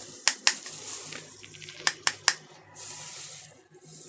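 Several sharp clicks and taps of small objects being handled, then a short hiss about three seconds in, over a faint steady low hum.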